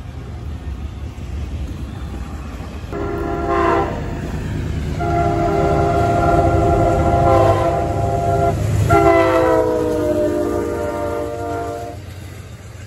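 Locomotive air horn sounding three blasts, a short one about three seconds in and then two long ones, the last falling in pitch as the train goes by, over the low rumble of the passing train.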